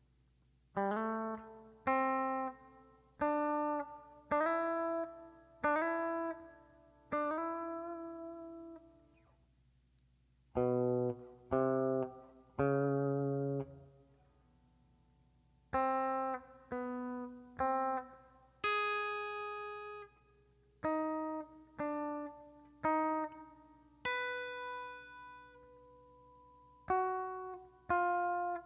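Gibson Les Paul electric guitar on its bridge humbucker, through overdrive, delay and reverb, playing a slow solo melody one picked note at a time. Each note rings out before the next, in short phrases with brief pauses between them.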